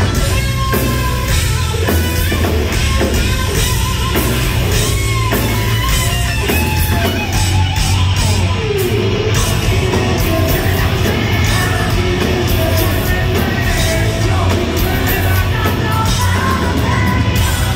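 Live heavy-metal band playing at full volume: electric guitars through Marshall stacks, bass guitar and drums, with a singer's yelled, singing vocals, heard from within the audience in a large hall.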